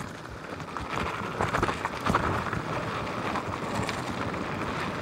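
Onewheel GT rolling over dirt and loose gravel, picked up by a microphone mounted inside the board's rail: a steady rushing of the tire on the ground with scattered crackles and small knocks from gravel.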